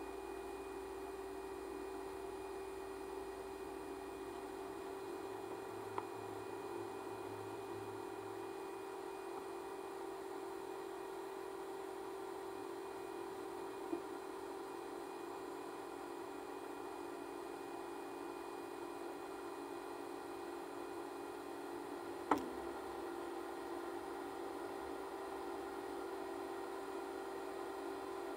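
Grain-unloading machinery runs with a steady, muffled hum on one constant tone while shelled corn drains out of a gravity wagon into the bin. A few sharp ticks sound, the loudest about 22 seconds in.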